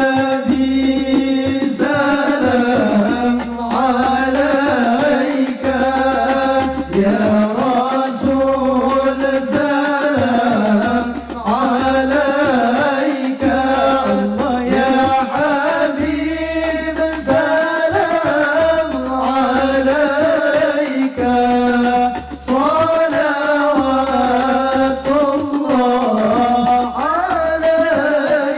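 Music: an ornamented melody with sliding pitches, in a Middle Eastern style, over a low beat that repeats about every second or so.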